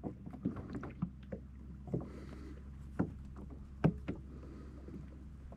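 Scattered knocks and taps of fishing gear being handled on a kayak, about seven in all at uneven intervals, with the loudest close to four seconds in. A low steady rumble lies under them, and a brief soft hiss comes about two seconds in.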